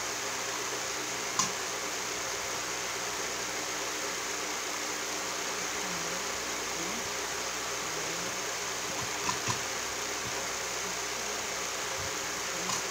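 Steady hiss with a few sharp metal clicks: one about a second in, a quick pair about nine seconds in, and one near the end. The clicks come from a bearing puller being fitted onto a ceiling fan's shaft and bearing.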